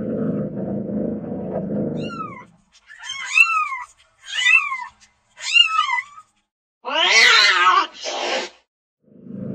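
Domestic cat meowing: four short, high calls that rise and fall, then a louder, longer, lower wavering yowl and a short rough rasp. A low rumble fills the first two seconds and comes back near the end.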